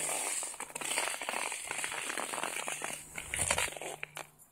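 Packed snow crunching and scraping, with dense crackles and a hiss, and one louder bump about three and a half seconds in; it falls quiet just before the end.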